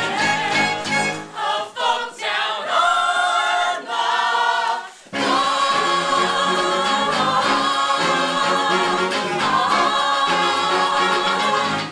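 A stage musical's ensemble singing a song together in chorus, with a brief break about five seconds in.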